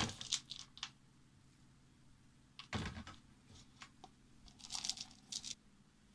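Food containers being handled: several short bouts of crinkling and rustling, in clusters near the start, around three seconds in and around five seconds in.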